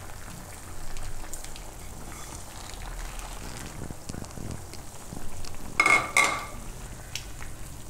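Thin green-onion and tomato gravy simmering and bubbling in a kadai, with fried boondi just dropped into it. Two short ringing knocks come about six seconds in.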